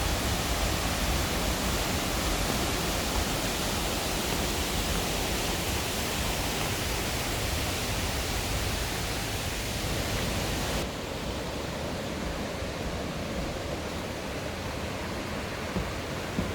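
Steady rushing of a mountain stream's rapids and falls. About eleven seconds in the sound cuts abruptly to a quieter, duller rush.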